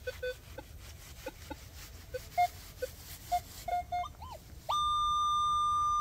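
Metal detector giving short, irregular low beeps as the coil is swept, then about three-quarters of the way in a loud, steady high-pitched tone that holds: the detector signalling a metal target in the ground.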